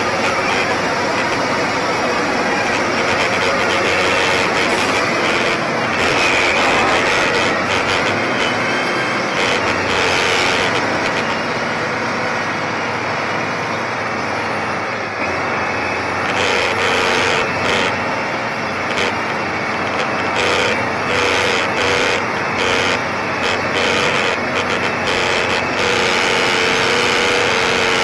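Heavy diesel engine of an earthmoving scraper running steadily under load while the scraper cuts and loads dirt into its bowl. Irregular knocks come through in the second half.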